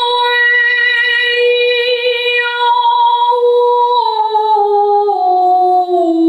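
A woman singing a vowel demonstration: one long held note for about four seconds, then stepping down in pitch to a lower note near the end. It is a vocal resonance exercise, sung downward along the back of the throat.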